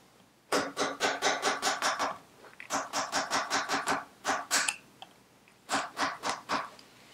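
A mallet tapping lightly on a punch against the locking tab of a Vespa PX engine's primary drive nut, knocking the tab back so the nut can be undone. The taps come in four quick runs, about seven a second.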